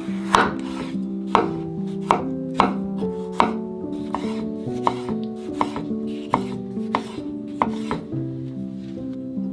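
Kitchen knife cutting a tomato into wedges on a wooden cutting board. Each cut ends in a sharp knock on the board, about one every half second to second, over soft background music with held notes.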